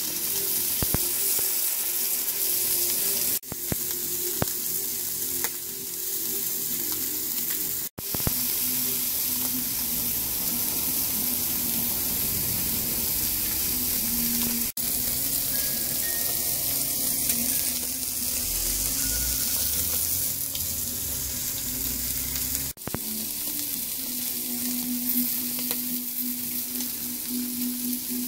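Chuck eye steaks sizzling on hot grill grates: a steady, even crackling hiss, broken by a few abrupt cuts in the recording.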